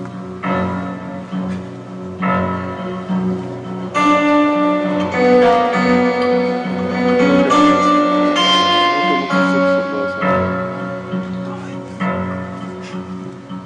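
Acoustic guitar played live, plucked chords and single notes. About four seconds in the playing grows louder and fuller, with higher melody notes, and it eases back around ten seconds in.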